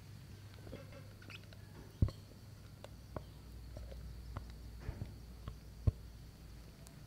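Kitchen handling sounds as cream cheese filling is scooped and spread with a silicone spatula: scattered soft clicks and taps, with two sharper knocks about two seconds in and near the end, over a low steady hum.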